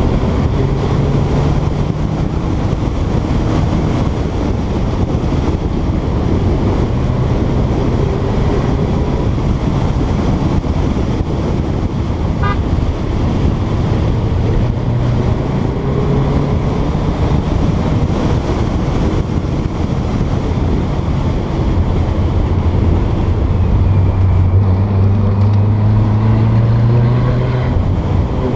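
Porsche 912's air-cooled flat-four engine running under way, with tyre and wind noise. The engine note shifts up and down through the run and climbs steadily over the last few seconds before dropping away.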